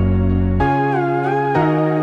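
Background music: a slow, gliding melody over sustained bass notes that change about every second.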